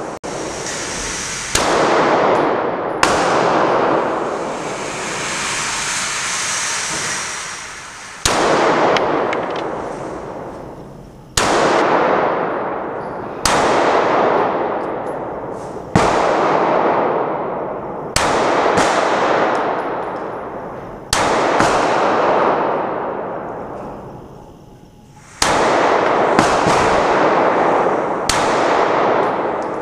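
About a dozen single 9mm shots from a Glock 19 pistol in a CAA Micro RONI carbine chassis, fired one at a time, one to five seconds apart. Each crack rings on in a long echo through the large indoor range hall.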